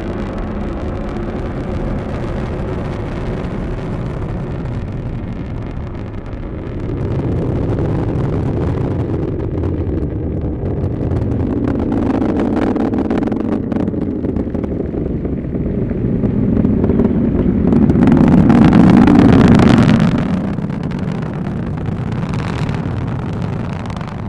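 Atlas V 551 rocket in ascent, its RD-180 first-stage engine and five solid rocket boosters heard as a steady low rumble that swells to its loudest about three-quarters of the way through, then eases off.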